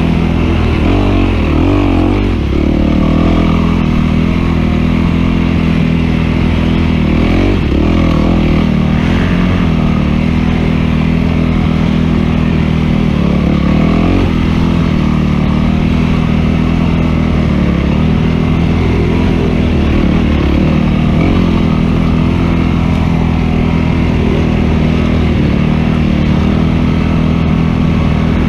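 Dirt bike engine running hard under the rider, its revs rising and falling continually with the throttle, with a brief drop in level about two seconds in.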